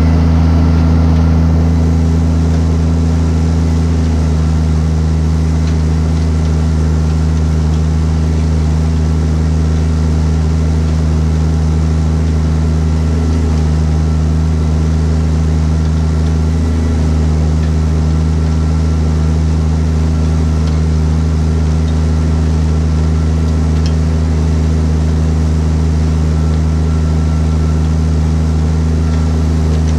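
Fendt 820 Vario tractor's Deutz TCD 2012 six-cylinder diesel running steadily at constant revs, with a faint high whine held on one note.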